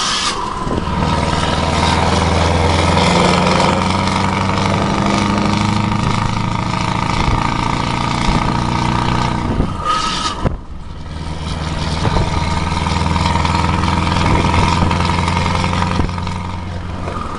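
Scania R580 truck's V8 diesel engine heard from inside the cab while driving, running steadily under road noise. About ten seconds in there is a short hiss and the engine sound drops away for about a second, then picks up again.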